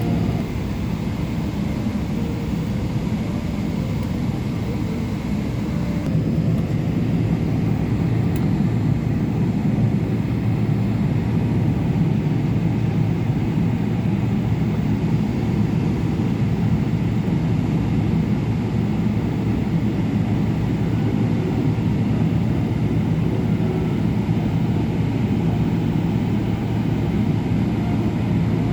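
Boeing 777-200LR cabin noise on the ground after landing: its GE90 engines at idle give a steady low rumble with a constant hum.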